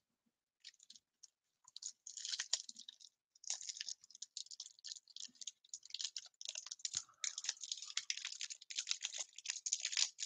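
Foil trading card pack crinkling and tearing as it is ripped open by hand, in irregular crackling bursts starting about two seconds in.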